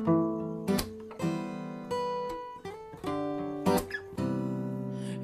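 Acoustic guitar strumming chords as a song's instrumental intro, changing chord every second or so and letting each ring.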